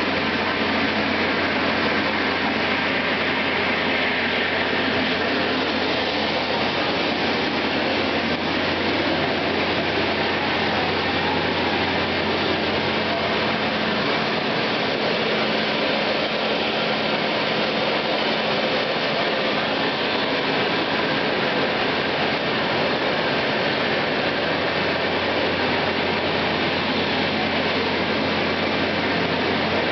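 Steady mechanical noise: a constant rush of air over a low, even hum, unchanging throughout, with faint voices underneath.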